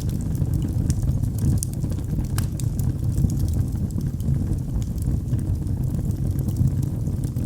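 Wood fire in a fireplace crackling: scattered sharp pops and snaps over a steady low rumble of burning.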